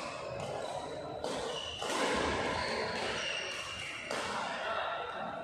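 Racket hits on shuttlecocks and players' footwork echoing in a large indoor badminton hall.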